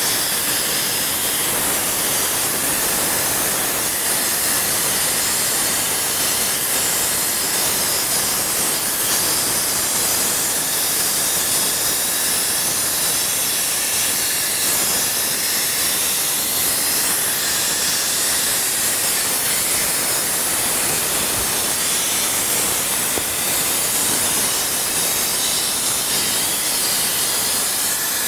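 Steady hiss of compressed air blowing from the forward skipper ball of a Cobraview duct inspection camera as it is worked down a sheet-metal heating duct. The air comes from a compressor pumping around 200 psi.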